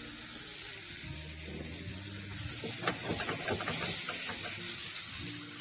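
White sauce sizzling in a hot frying pan with fried fish pieces as a wooden spatula stirs it, with a few scrapes and taps of the spatula against the pan around the middle.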